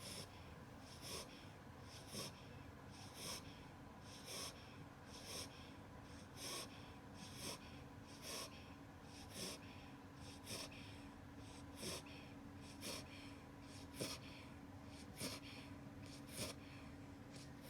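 Eight-week-old beagle puppy snoring in its sleep: short, faint snuffling snores in an even rhythm of about one a second.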